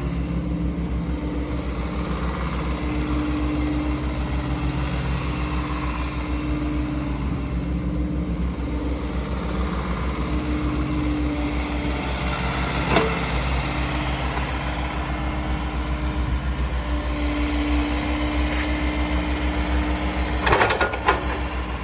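JCB 86C-1 midi excavator's diesel engine running under load, with the hydraulics whining on and off as the boom and arm are worked and the upper structure slews. A sharp clank about halfway through and a few knocks near the end.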